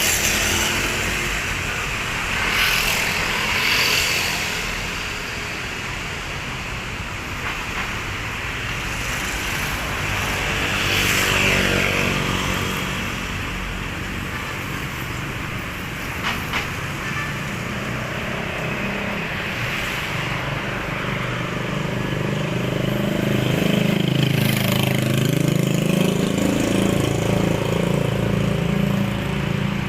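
Street traffic: cars and motorcycles passing in a steady hum. In the last third, a nearby vehicle engine runs close by, its pitch dipping and rising again about halfway through that stretch.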